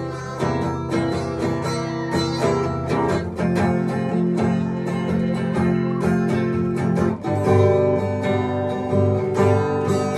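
Instrumental music with a strummed acoustic guitar playing chords, the ending of a country-style song, with a change of chord about seven seconds in.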